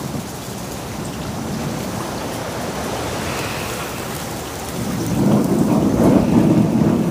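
Celery frying in oil in a frying pan: a steady sizzle that grows louder about five seconds in.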